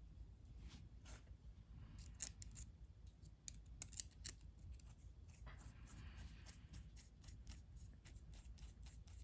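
Faint handling of a small shop-made metal screw clamp being put together by hand: many small metallic clicks and taps, sharpest about two and four seconds in, with a short scraping rub about six seconds in as parts slide and screws are run in.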